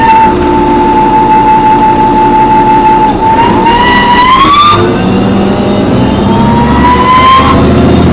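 High-pitched screech on board a New Flyer D40LF transit bus, which the uploader puts down to the brakes or the Voith transmission, over the low hum of its Cummins ISM diesel. The screech holds one pitch for about three seconds, climbs and cuts off about five seconds in, then climbs again near the end.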